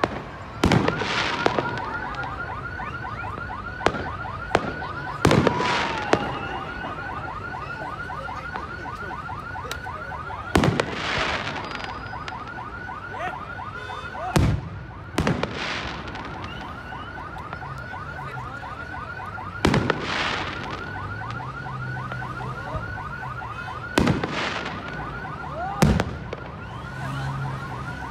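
Aerial firework shells bursting overhead, sharp bangs every few seconds, some in quick pairs, each with a short crackling tail. Under them, a fast electronic warble repeats steadily without a break.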